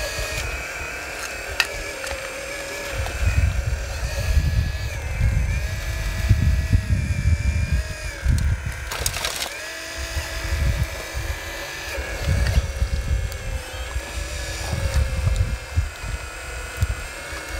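Electric motors of a radio-controlled 4200XL excavator and a model trommel's conveyor whining, the pitch stepping up and down several times as the excavator digs. Gusts of wind rumble low on the microphone, with a sharp click about nine seconds in.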